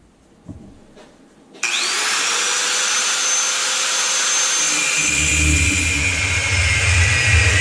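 An electric power tool is switched on about one and a half seconds in. Its pitch rises quickly as the motor spins up, then it runs at a steady whine. A lower rumble joins about five seconds in as it cuts into the metal rack tube.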